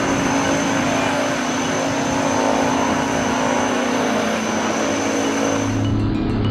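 A twin-engine propeller plane's engines and propellers running loud on the runway, a steady rushing noise with a thin high whine over it. A strong low hum comes in near the end.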